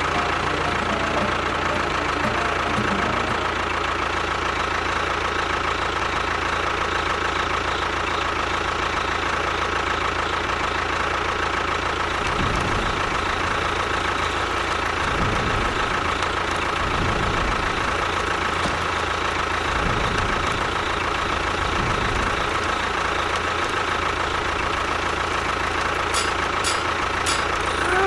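An engine idling steadily, with a steady whine over the running.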